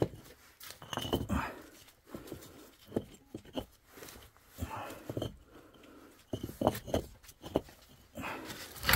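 Loose bricks knocking and scraping against each other and the brick floor as they are pushed up against a wall by hand, with chickens calling close by.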